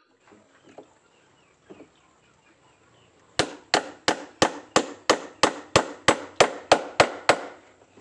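A hammer striking the wooden engine-mount block and its bolts in a wooden boat's hull. A few light taps come first, then, about three and a half seconds in, an even run of about a dozen hard blows, some three a second.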